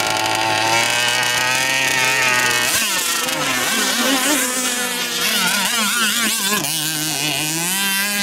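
Small two-stroke gasoline engine of a radio-controlled racing boat buzzing. It holds a steady pitch at first; about three seconds in it changes abruptly, then rises and falls in pitch as the boat runs at speed across the water.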